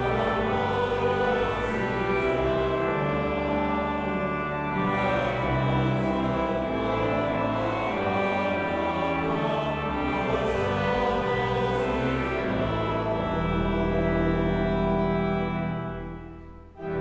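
A choir singing slow, sustained chords with instrumental accompaniment. The sound fades down briefly near the end, then the music picks up again.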